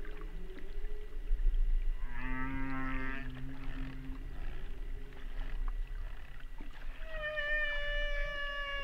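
Whale song. About two seconds in there is a wavering call with many overtones lasting about a second, and near the end a long, slightly falling call, both over a steady low hum.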